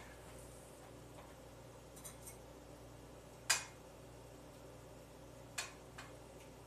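Short clinks and taps of cooking utensils against cookware on the stove: two light taps about two seconds in, a louder clink about three and a half seconds in, and two more near the end. A steady low hum runs underneath.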